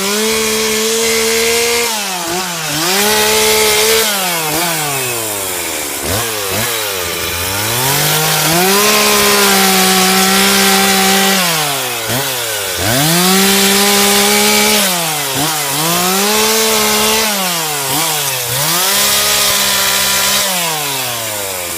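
Gas chainsaw cutting through wood for firewood, revved to full throttle for a few seconds at a time and dropping back to idle in between, about seven times.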